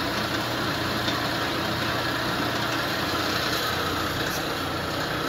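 Polamco TUG-40 geared-head lathe running steadily with its six-jaw chuck spinning at about 600 RPM: a constant hum from the motor and headstock gearing.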